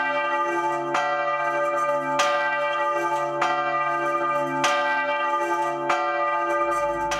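The Sigismund III church bell, swung and struck by its clapper about every 1.2 seconds, each stroke ringing on into the next.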